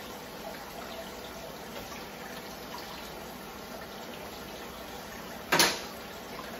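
Plantains and tamales sizzling steadily as they fry in oil in a pan on a gas burner. One sharp knock about five and a half seconds in.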